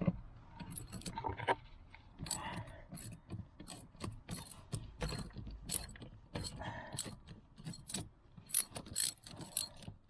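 Ratchet wrench clicking in quick, uneven runs as it undoes a 13 mm bolt on a car's fuse-box bracket.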